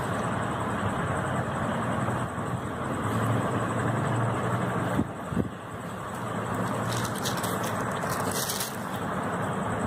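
Steady background rumble of the road-traffic kind, with a low hum throughout. Two soft knocks come about five seconds in, and a short rustle comes a little later.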